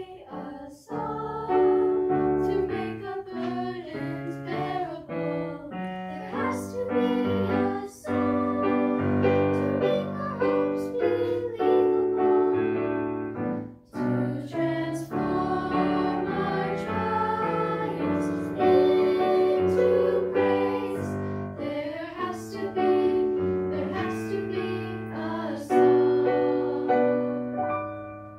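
A group of six sixth-grade girls singing a song in harmony, accompanied on a digital piano keyboard, with brief pauses between phrases.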